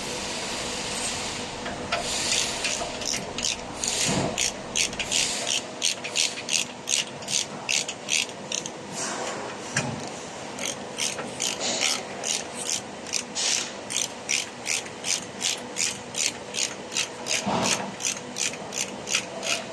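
Rhythmic scrubbing strokes on a car's carbon-ceramic brake, about two to three a second and steady for most of the stretch, as the brake is cleaned. A few duller knocks come in between.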